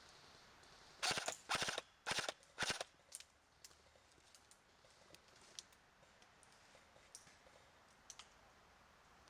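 Airsoft rifle firing four short bursts of rapid automatic fire in quick succession, followed by scattered faint single clicks and snaps.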